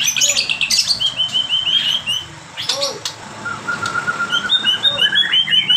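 White-rumped shama (murai batu) singing a fast song of repeated chirping notes, with phrases mimicked from lovebird and canary. It has quick trills of several notes a second, a short pause about halfway, then a long run of notes that climbs in pitch near the end.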